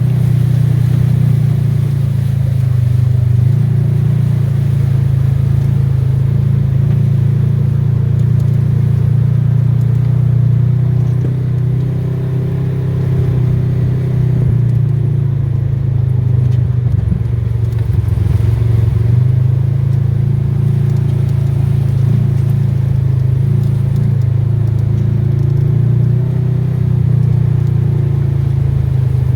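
A motor vehicle's engine running steadily with a deep drone, its pitch shifting a little as it eases off and picks up again, with light rattling.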